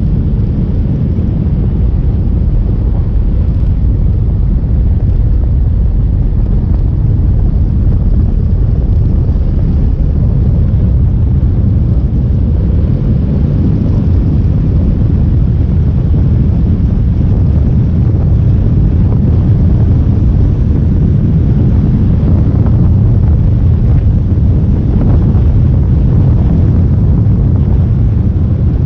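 Motorcycle riding along a road: wind rushing over the microphone on top of the engine and road noise, a loud, steady low rumble.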